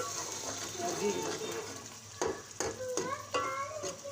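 Metal spoon stirring and scraping through a frying egg-and-masala mixture in an aluminium pot, over a light sizzle. The spoon strokes come sharper and quicker from about halfway through.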